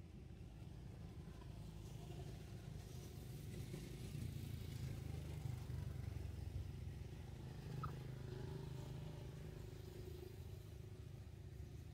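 Faint low rumble of a distant motor vehicle, building to a peak in the middle and easing off. A single short high squeak sounds about two-thirds of the way through.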